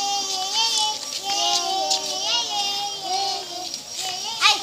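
Children's high voices singing or chanting in drawn-out, wavering notes, with a sharp crack about four seconds in.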